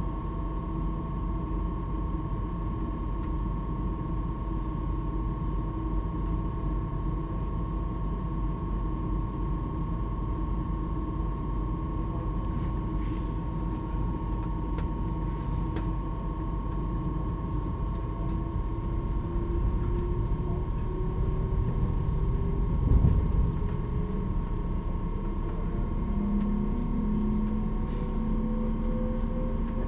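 Cabin noise inside a moving Stadler KISS double-decker electric train (Mälartåg ER1): a steady rumble of the running train with a steady high hum, and a drive whine that climbs slowly in pitch through the second half. A single low thump about three quarters of the way through.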